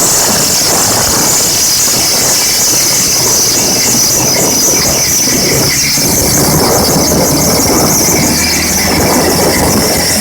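Gyrocopter's engine and propeller running steadily and loudly, with a high, continuous whine over a dense rushing noise.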